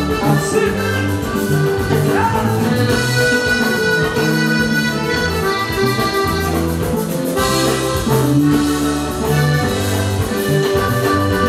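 Live Panamanian música típica band playing an instrumental passage led by a button accordion, over electric bass, drum kit and guitar.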